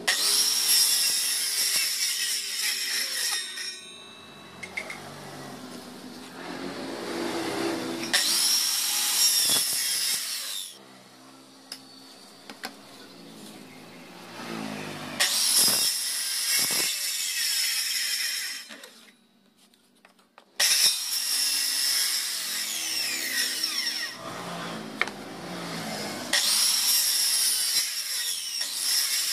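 Corded circular saw cutting wood while guided along a homemade track guide. It makes about five loud stretches of cutting, with the motor running quieter between them, and stops briefly about two-thirds of the way through before starting up again abruptly.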